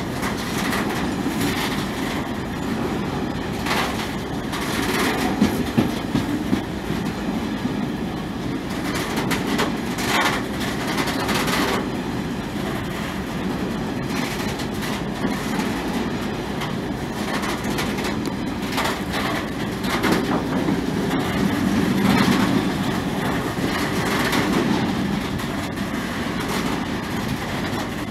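A long rake of Network Rail engineering wagons rolling past close by: a steady rumble of wheels on rail, broken by repeated clacks as the wheelsets cross rail joints.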